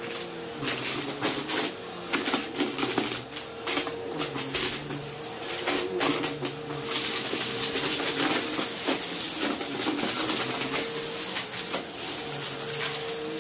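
Bissell upright vacuum cleaner running over a rug covered in glitter and small debris, crackling and rattling as the debris is sucked up. The crackling thins out about seven seconds in, leaving the steady motor and airflow.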